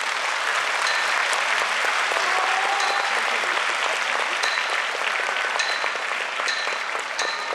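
Large arena crowd applauding in a steady wash of clapping, with short high pings every second or so.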